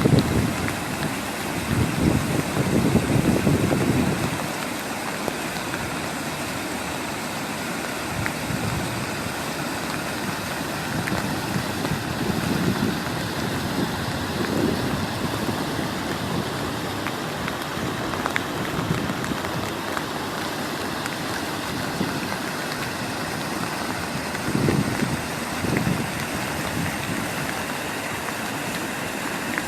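Steady rushing noise of water, with a few louder low swells in the first few seconds and again about 25 seconds in.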